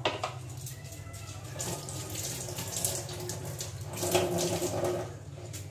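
Kitchen tap running into a stainless-steel sink, water splashing, loudest about four seconds in.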